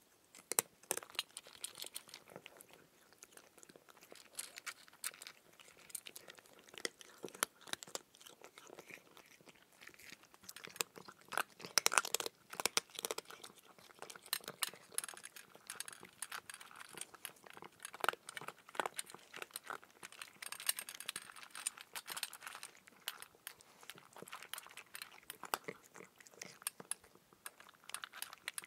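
A person chewing raw cucumber: irregular crunching bites, with the loudest run of crunches about twelve seconds in.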